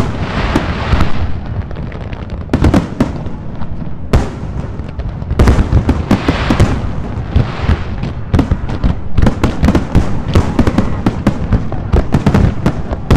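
Aerial fireworks shells bursting over and over: deep booms and sharp bangs, some followed by a long crackle, with the bangs coming faster in the second half, as in a display's finale.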